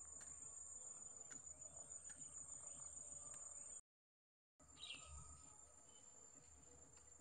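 Faint, steady high-pitched trilling of insects in the grass, with a few faint clicks. It cuts out completely for under a second about halfway through, then resumes a little quieter.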